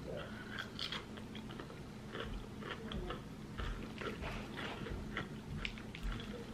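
A mouthful of cucumber being chewed close to the microphone: irregular crunching and wet mouth clicks.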